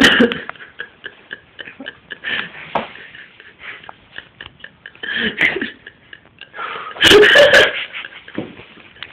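Irregular bursts of wordless vocal sounds from a person, the loudest lasting about half a second around seven seconds in.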